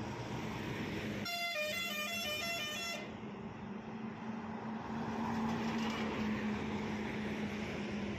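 Heavy trucks passing on a highway, their engines making a steady drone under road noise. About a second in, a truck's musical horn plays a quick run of changing notes for just under two seconds.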